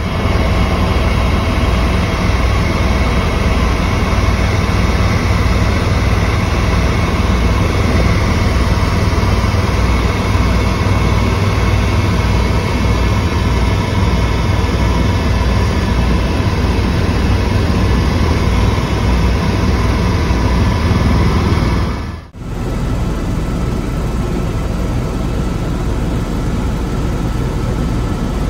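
Helicopter cabin noise in flight: a loud, steady drone of rotor and turbine with heavy low-pitched rumble and a few steady whining tones. It drops out for a moment about 22 seconds in, then carries on slightly duller.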